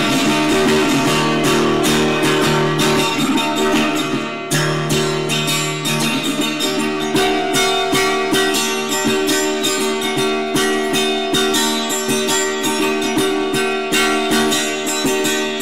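Instrumental music: a guitar-led passage of steadily strummed chords, with no singing.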